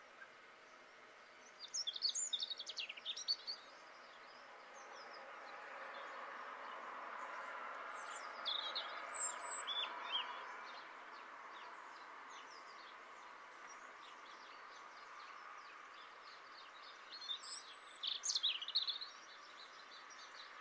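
A garden songbird sings three short, trilling phrases, each lasting one to two seconds and spaced six to eight seconds apart. Behind them runs a steady background hiss that grows louder in the middle.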